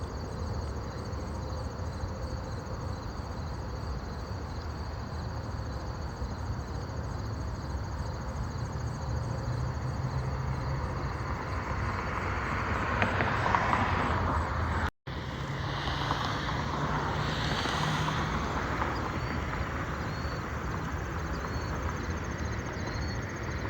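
Outdoor ambience: a steady low rumbling haze with insects chirring in the background, swelling louder a little past halfway and again a few seconds later, broken by a brief dropout in between.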